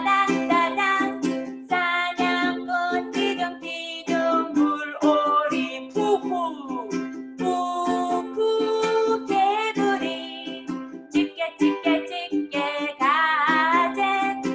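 A woman singing while strumming chords on a ukulele in a steady rhythm.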